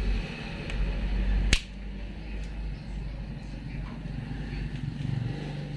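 A single sharp snap about one and a half seconds in, as pliers cut through the stainless steel safety wire on a motorcycle's rear sprocket bolts, over a low background hum.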